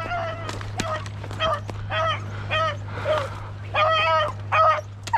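Beagles baying as they run a rabbit: a quick string of short, rising-and-falling hound bays, about two a second, with a longer bay about four seconds in.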